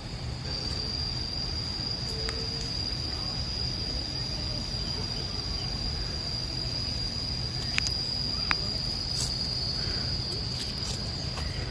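Steady high-pitched insect drone, one unbroken tone, over a low rumble, with a couple of faint clicks about eight seconds in.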